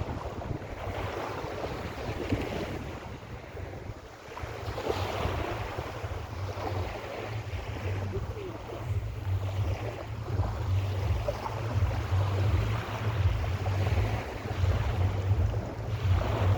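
Mediterranean sea waves washing onto a beach, the hiss of surf swelling and falling back every few seconds, with wind buffeting the microphone in low rumbles.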